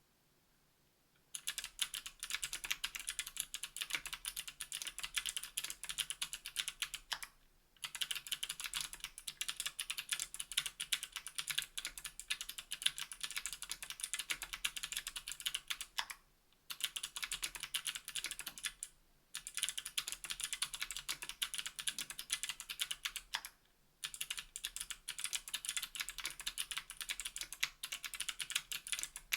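Fast typing on a KBDfans Tofu 60% aluminium mechanical keyboard with NK_ Sherbet clickbar switches (a clicky switch) on an aluminium plate, with GMK keycaps: a dense run of sharp, high key clicks. It starts about a second and a half in and breaks off briefly four times.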